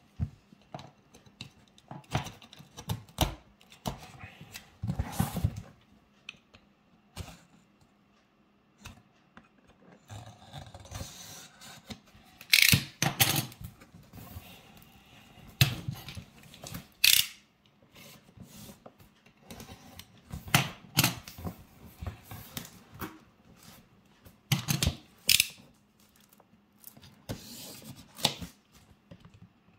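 Knife cutting and scraping through the plastic shrink wrap on a cardboard box, with crinkling film and irregular clicks and knocks as the box is handled and turned over.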